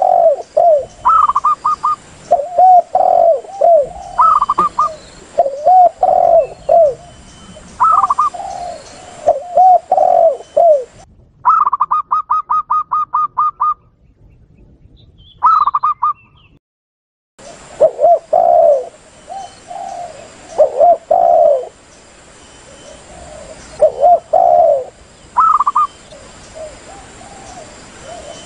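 Spotted doves and zebra doves calling together: repeated low, rolling coos mixed with quicker, higher-pitched coo phrases, with a fast run of about a dozen high notes midway. The recording drops out to silence briefly twice near the middle.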